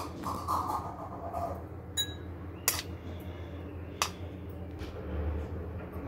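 A spoon tapping and clinking against ceramic plates a few times in short sharp knocks, about two, three and four seconds in, one ringing briefly, over a steady low hum.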